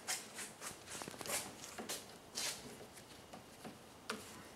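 Rubber window run channel being pushed by hand into a Jeep Wrangler door frame: a run of short, irregular rubbing and scraping strokes, with a sharper click about four seconds in.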